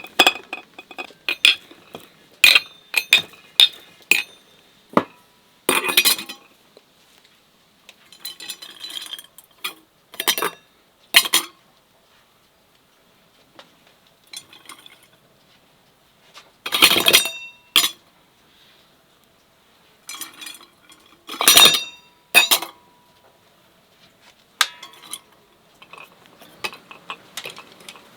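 Kitchenware being handled: a series of irregular knocks and clinks of dishes and utensils, some ringing briefly, with two louder clatters in the second half.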